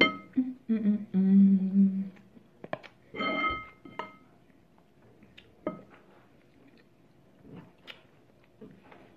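A woman humming with her mouth closed while eating, a few short "mm" sounds and one held for about a second. After that comes a ringing clink and a few sharp clicks of a spoon against the bowl as she stirs her food.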